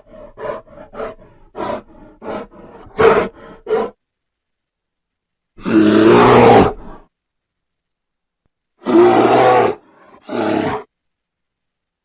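Grizzly bear sound effect: a quick run of short grunts, then after a pause a long roar followed by two shorter roars.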